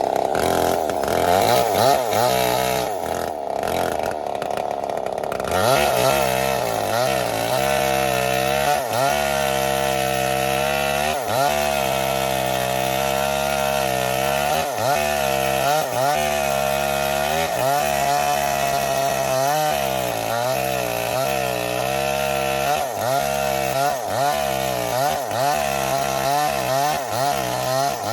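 Small single-cylinder diesel engine running after a hand-crank start. It is rough and uneven for about the first five seconds, then runs on with its speed wavering up and down.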